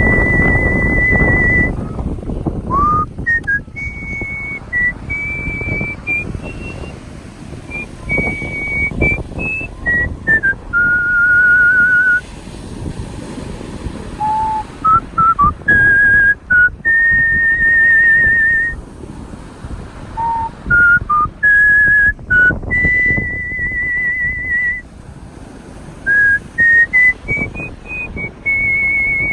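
Solo artistic whistling of a slow melody: a single clear tone moving through long held notes with vibrato and shorter connecting notes, over a low background rumble.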